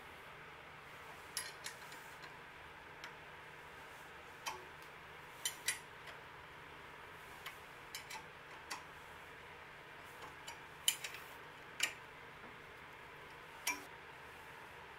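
Light metal-on-metal clicks and taps of steel blocks and a steel rod being positioned on a lathe's cross-slide, about a dozen scattered knocks over a faint steady hiss.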